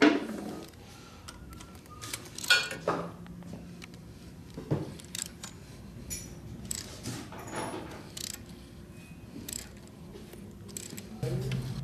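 Hand tap and tap wrench cutting threads into a head bolt hole in a Harley-Davidson engine case: scattered metal clicks and short scrapes as the tap is turned slowly by hand, lubricated with cutting fluid.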